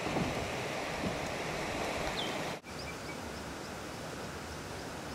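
A river in flood: fast-flowing floodwater giving a steady rush, with a few faint bird chirps over it. The sound drops out for an instant about two and a half seconds in and goes on a little quieter.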